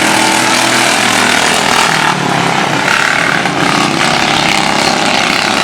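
Racing lawn mower engines running steadily at speed, heard as a loud, even mechanical drone with a wide hiss of noise over it.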